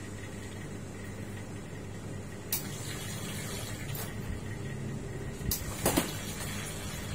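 A ceramic cup set down on an espresso machine's metal drip tray with a few clinks, then louder knocks near the end as a stainless milk pitcher is handled, over a steady low hum.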